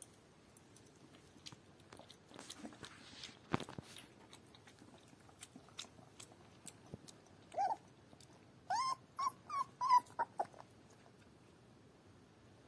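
Puppy lapping milk from a glass bowl with small wet clicks, then giving one short whine followed about a second later by a quick string of five short, high whimpers.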